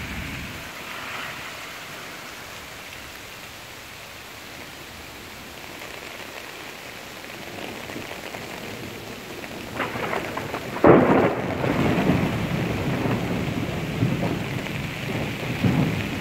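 Heavy rain falling steadily on an umbrella overhead. About eleven seconds in comes a sudden loud crack of thunder, and thunder keeps rumbling under the rain after it.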